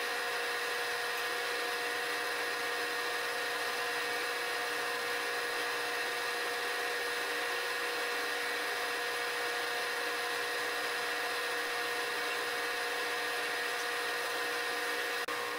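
Excello vertical milling machine's spindle running with a small end mill taking light finishing passes on a tool-steel part: a steady whine that holds one pitch throughout.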